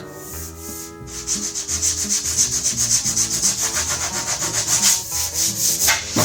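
Hand-sanding a dent in a car body panel with 80-grit sandpaper: quick, rhythmic back-and-forth scratching strokes that start about a second in. This scuffs the bare spot so body filler will adhere.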